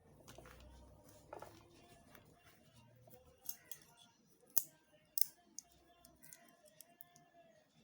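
Small hard pieces being handled, giving a scattered run of sharp clicks and light clinks, two louder ones a little past halfway.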